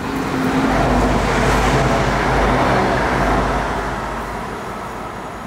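A vehicle passing close by, heard from inside a pedestrian underpass: a deep rumble with a faint engine-like hum that swells over about a second, holds for a couple of seconds, then fades away.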